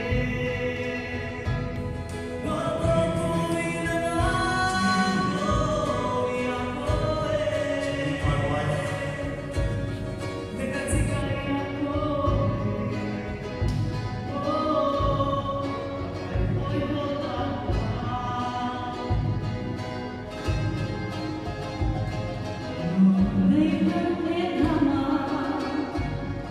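Music: several voices singing a song together over a steady percussive beat.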